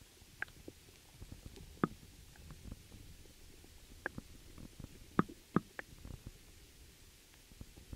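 Underwater ambience picked up by a submerged camera: a faint, muffled low rumble with about half a dozen sharp, irregular clicks and ticks, the loudest a little under two seconds in and about five seconds in.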